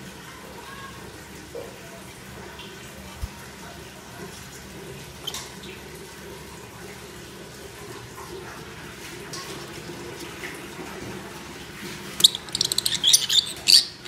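Rosy-faced lovebirds: a few soft clicks while one eats, then about twelve seconds in a rapid burst of loud, shrill chirping that lasts under two seconds. A steady hiss runs underneath.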